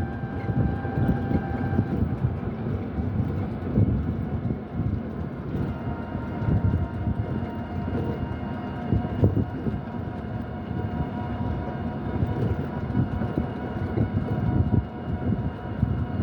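A loud, continuous low rumble with several steady held tones above it, like heavy machinery running. About five and a half seconds in, a new set of higher steady tones comes in.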